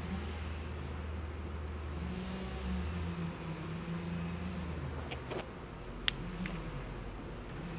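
A low, engine-like hum that shifts in pitch, with a few light wooden clicks and taps about five to six and a half seconds in as a wooden hive cover is set down on the hive box.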